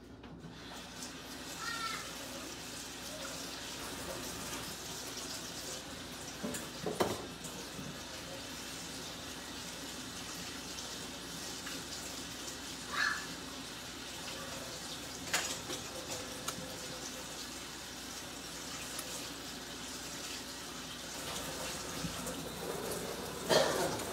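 Thick sausage gravy simmering in a cast iron skillet: a steady bubbling hiss with a few sharper pops.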